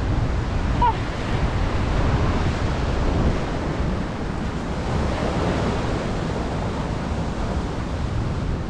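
Ocean surf washing on a beach, with wind buffeting the microphone as a steady low rumble.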